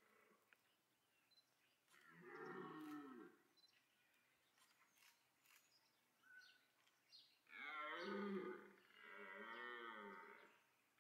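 Red deer stag roaring during the rut: one short bellow about two seconds in, then two longer ones back to back near the end. This is the autumn rutting call that draws hinds and challenges rival stags.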